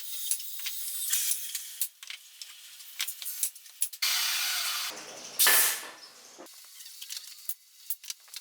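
Woodworking sounds from hand tools on wood: scattered clicks and knocks, a second of steady rasping noise about four seconds in, then a louder, brief noise burst just after.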